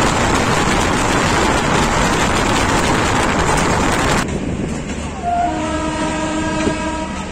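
Loud rushing rail noise of a moving train that cuts off abruptly about four seconds in, followed by a steady, several-toned locomotive horn sounding for about two seconds near the end.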